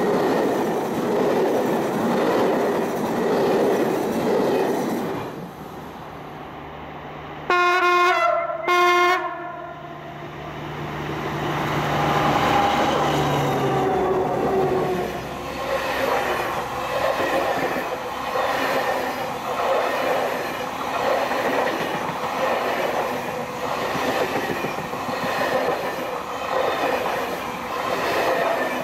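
Passenger coaches rolling past on the rails, then about seven seconds in a diesel locomotive's two-tone horn sounds two short blasts. The locomotive's engine goes by, followed by a long train of coaches clicking over the rail joints in a steady rhythm.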